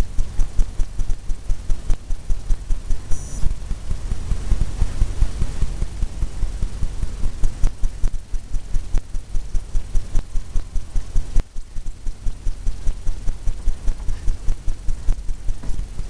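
A fan brush tapped rapidly against a stretched canvas, which thumps like a drumhead at about four taps a second, with a short pause partway through.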